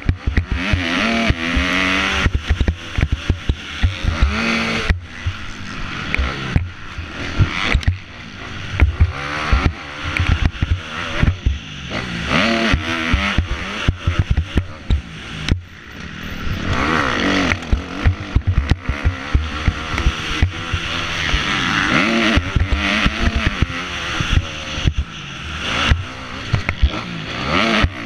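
Kawasaki KX250F four-stroke single-cylinder motocross engine revving hard and falling off again and again as it is ridden at race pace, heard from a helmet-mounted camera with wind noise. Frequent knocks and rattles from the bike over ruts and bumps.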